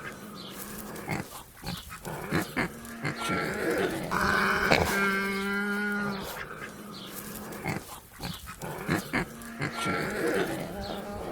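Domestic pig grunting in short, rough bursts, with one longer drawn-out call about four seconds in.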